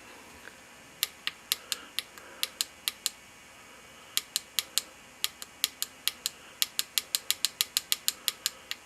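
Tactile push-buttons on a DF Robot LCD keypad shield clicked over and over, each press stepping a number up by one. About eight sharp clicks start about a second in, then after a short pause a longer run of clicks at about four to five a second.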